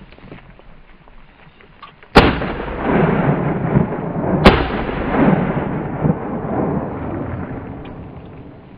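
Two shotgun shots about two seconds apart, fired at partridges; each is followed by a long rolling echo off the surrounding hills that fades away over several seconds.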